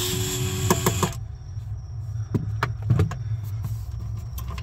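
DeWalt cordless screwdriver running as it backs a screw out of the refrigerator's evaporator coil, stopping about a second in. It is followed by a few sharp clicks and knocks of tool handling.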